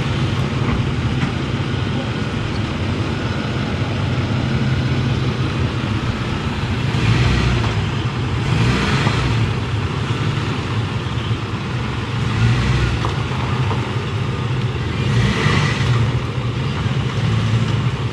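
Ford F-150 pickup's V8 engine running at low speed, rumbling steadily as it creeps forward pulling a fifth-wheel trailer. Rushing noise swells about seven seconds in and again near the end.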